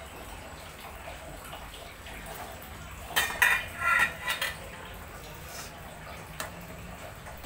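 Metal kitchenware clattering: a quick run of clinks and knocks with a ringing tone about three seconds in, then a single tap near the end.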